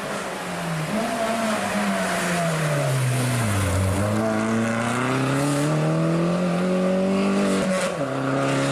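Opel Corsa OPC rally car's turbocharged engine: the revs fall for a few seconds as it slows, then climb steadily under acceleration, with a sudden drop in revs near the end as it shifts up.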